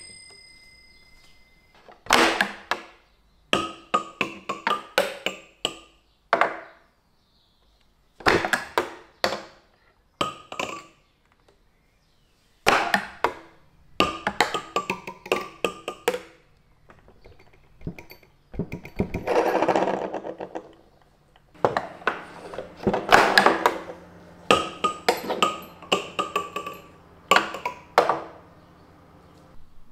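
Steel balls played on a wooden bagatelle table, clattering down through the nail pins in repeated runs of rapid knocks with short pauses between. Now and then a ball strikes one of the small brass bells, which rings briefly.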